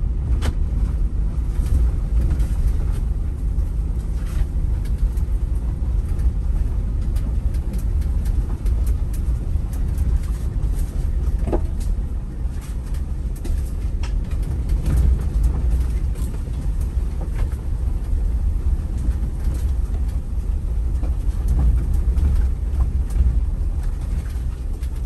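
Ford Bronco driving: a steady low rumble of road and engine noise, with scattered light clicks and rattles.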